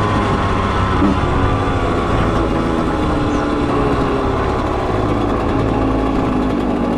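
Dirt bike engine running steadily at part throttle, its pitch drifting slowly lower.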